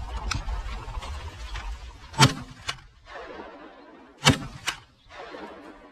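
Two shotgun blasts from a Benelli 20-gauge semi-automatic, about two seconds apart, each followed by a fainter crack about half a second later.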